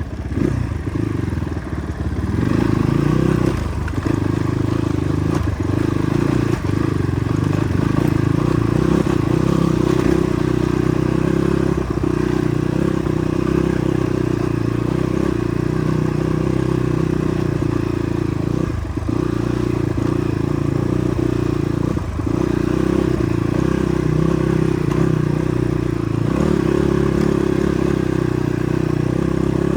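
Motorcycle engine running steadily under way, with a few brief dips in the engine sound.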